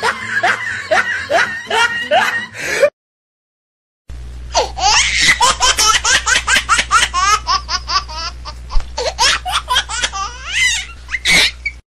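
Hearty laughter in quick ha-ha pulses, cut off by about a second of silence, then a second, longer fit of fast laughter over a steady low hum.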